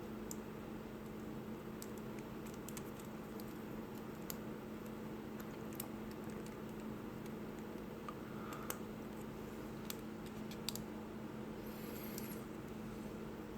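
Scattered small plastic clicks and taps from handling and fitting plastic model kit parts, a few sharper ones standing out, over a steady low hum.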